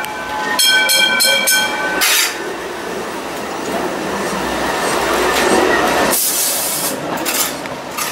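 Hong Kong Light Rail car sounding its pitched warning signal in three quick pulses. The car then runs past on its tracks with a steady rolling rumble and hiss.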